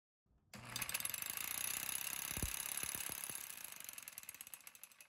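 Homemade impact and vibration test rig running, shaking a bolted joint (3/8-16 bolt with plain hex nut and split lock washer) in a rapid metallic rattle, with a few heavier knocks in the middle. The rattle starts about half a second in and fades out near the end.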